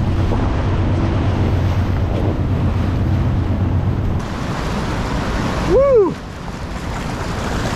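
Rushing, churning whitewater of a class III river rapid around an inflatable packraft, with wind buffeting the camera microphone; the low rumble drops away about four seconds in. About six seconds in comes a brief cry that rises and falls in pitch.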